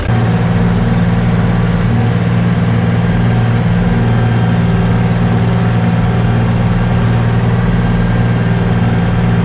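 Diesel engine running at a steady speed, a low even drone with no revving.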